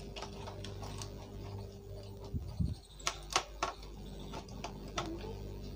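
Plastic clicks and taps from a remote-control toy car's plastic chassis being handled and screwed shut with a screwdriver, with a cluster of sharper knocks about halfway through.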